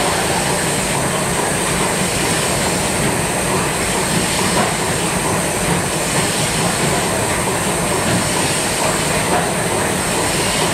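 The TSS Earnslaw's twin triple-expansion steam engines ticking over at idle, a steady mechanical clatter of rods and valve gear with a constant hiss. The engines are barely turning, being warmed up slowly.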